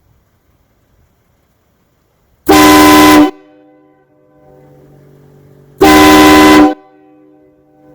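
Toyota Sienna minivan horn fired twice by a Techstream active test: two short, very loud blasts about three seconds apart, each a steady chord of several tones. A faint low steady hum follows the first blast.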